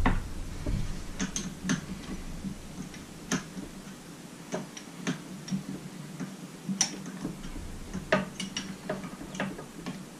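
A hand wrench clicking and clinking on the bolts of an outboard powerhead: about fifteen light metallic ticks at irregular intervals, a few louder than the rest.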